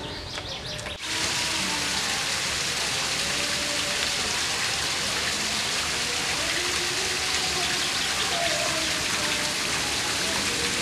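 A steady, even hiss like heavy rain that switches on abruptly about a second in, with faint pitched sounds beneath it.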